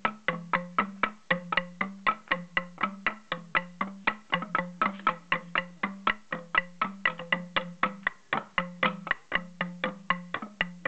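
Several Kalinga bamboo stamping tubes (tongatong) struck upright on a concrete floor in a steady interlocking rhythm. About four to five sharp knocks a second, each ringing briefly at a low pitch that alternates between two notes.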